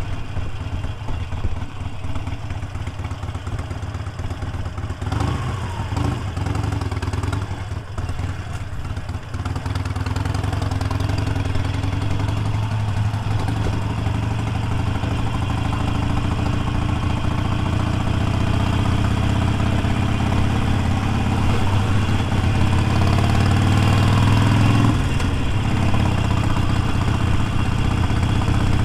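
Motorcycle engine running as the bike is ridden. In the second half the engine note climbs steadily as it accelerates, then drops suddenly at a gear change near the end.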